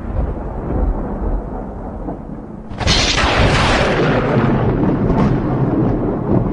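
Thunder sound effect: a low rumble, then a sudden sharp crack of thunder about three seconds in that rolls on loudly.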